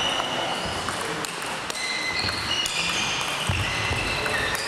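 Table tennis balls clicking off rackets and tables in rallies, with many short, high ringing pings at several different pitches from balls on more than one table.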